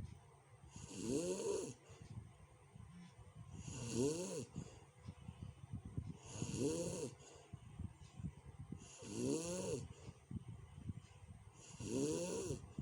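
A person snoring roughly in a steady rhythm, about one breath every three seconds: a low rattling flutter, then a whistling rise-and-fall with a hiss on each breath.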